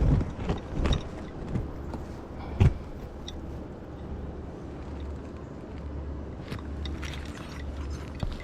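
Handling knocks as a camera is set up, with a sharp thump about two and a half seconds in and scattered small clicks, over a low steady rumble.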